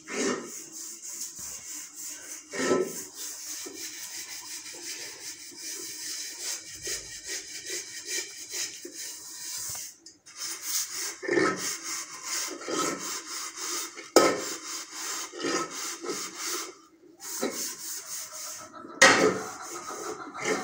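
Steel pots and dishes being scrubbed by hand: quick, rhythmic scraping strokes, broken by a few sharp knocks of metal utensils, the loudest near the end.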